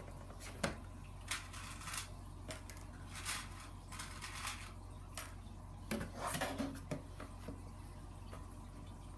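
Foam core board walls being handled and pinned together at the corners: scattered light clicks, taps and rubbing, with a sharper click under a second in and a cluster of rustling and clicks around six seconds in, over a steady low hum.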